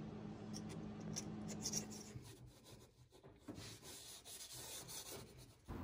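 Faint scraping of a razor blade across the cast-iron deck of a Ford flathead V8 block, stripping off stuck head-gasket residue, in quick strokes that die away to near silence about two seconds in.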